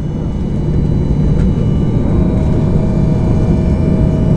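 Steady cabin noise of a Boeing 737 airliner in flight: a low engine and airflow rumble with a constant hum, joined about halfway through by a faint steady higher tone.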